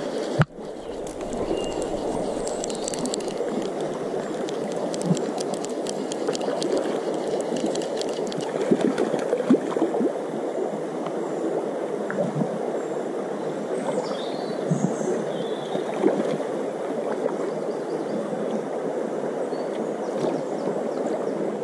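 Shallow stream running steadily, with intermittent splashing and short clicks as a hooked brown trout thrashes at the surface while being played to the net. A single sharp click about half a second in.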